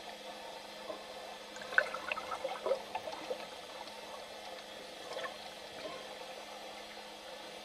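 Underwater ambience picked up by a camera in the water: a steady wash of water noise with a faint hum, and a cluster of short chirps and pops about two to three seconds in, with a few more around five seconds.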